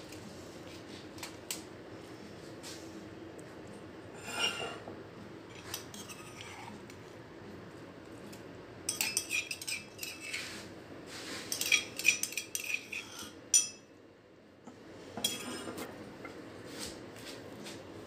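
Kitchen handling sounds: a metal spoon clinking and scraping against a brass cup and a steel plate, with a busy run of sharp clinks about halfway through.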